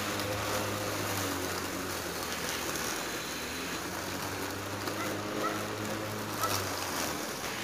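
Converted electric lawnmower mowing grass, its 12-volt car heater blower motor with carbon brushes spinning the cutting blade: a steady hum over an even rushing noise.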